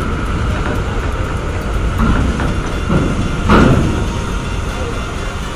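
Intercity coach's diesel engine rumbling low as the coach creeps up a steel loading ramp onto a ferry's vehicle deck, with a few short thumps about two, three and three and a half seconds in.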